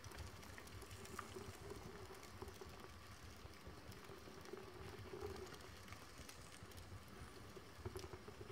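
Paper pages of a stamp album burning: faint crackling from the flame with scattered small ticks and pops.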